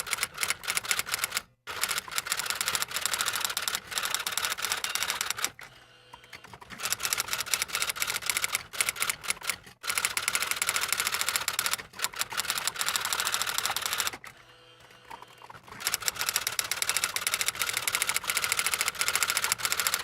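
Typewriter keys clacking in rapid, continuous runs, with a few short breaks and two longer pauses.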